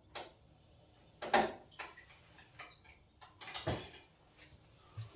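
Hand tools and metal boiler parts knocking and clicking during pump removal, about six separate knocks, the loudest about a second and a half in and near four seconds in.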